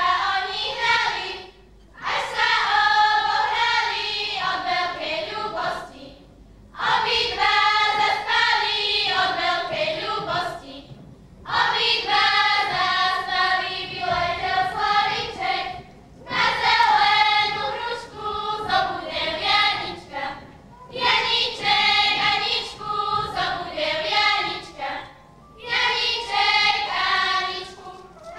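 A choir of girls from a children's folk ensemble singing a folk song unaccompanied. They sing in phrases of about four seconds, each followed by a short pause for breath.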